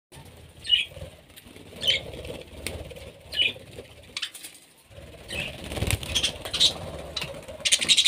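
Budgerigars giving short, high chirps, a few spaced a second or more apart, with wing flaps and rustling as the birds flutter down onto a hand. A quick burst of rapid pulses comes near the end.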